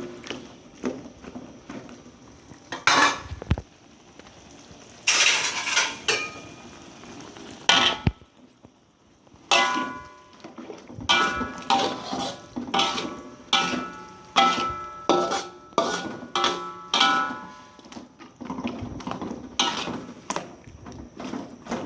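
A utensil stirring in a cooking pan, scraping and clanking against the metal with a ringing tone. The strikes are scattered at first, with a longer scrape, then come quickly, about two a second, after a short pause partway through.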